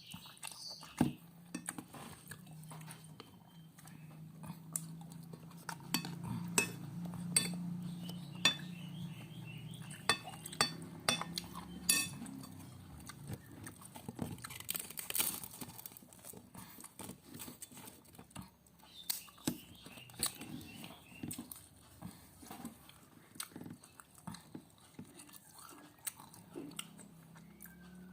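A spoon and fork clinking and scraping against a plate, with many sharp clicks throughout, over close-up chewing sounds.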